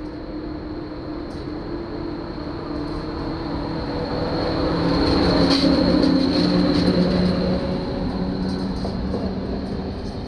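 PKP EP07 electric locomotive pulling a departing passenger train past, its motors humming in several low tones. The hum grows louder to a peak a little past halfway, then fades. A thin high wheel squeal is strongest as it goes by.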